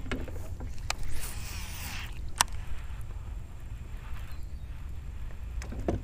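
Fishing with a baitcasting rod and reel from a small boat: a brief rushing hiss about a second in and a few sharp clicks, over a steady low rumble.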